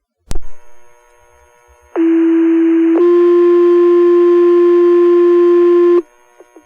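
Two-tone sequential fire-department page sent over a dispatch radio channel: a click and hiss as the transmitter keys up, then one steady tone for about a second followed immediately by a second steady tone held for about three seconds, the signal that sets off the volunteer firefighters' pagers. Radio hiss continues after the tones stop.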